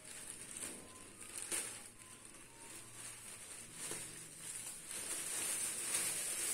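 Thin plastic bag crinkling and rustling as hands work at untying its knot, with a few sharper crackles, getting louder near the end.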